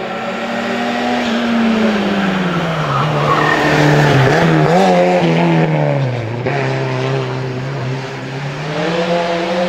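Renault 5 race car's engine at hill-climb pace: the engine note falls steadily as it slows into a bend and wavers about four to five seconds in, with a brief tyre squeal as the car passes. The pitch then climbs again near the end as it pulls away up the road.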